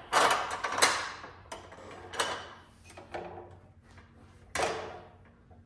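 Metal clunks and scrapes as a stainless steel pipe is set against the vise and fence of an abrasive chop saw and the saw head is lowered to line up the cut. There are three clattering knocks, the loudest near the start, with others about two seconds in and near the end. The saw motor is not running.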